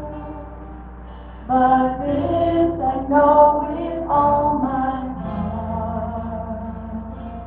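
Live worship song: a woman sings the lead melody over a small church band, her sung phrase entering about a second and a half in and easing into held notes.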